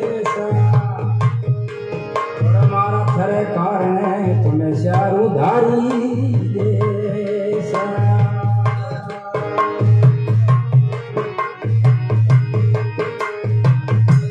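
Instrumental interlude of a Rajasthani devotional bhajan: a harmonium plays the melody over a steady dholak beat, with deep bass drum strokes about once a second.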